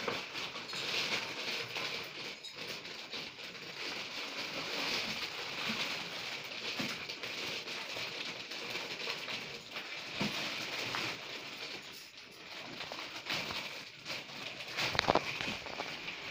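Faint steady hiss of room ambience with scattered soft clicks and rustles of handling, and a brief louder patch of rustling near the end.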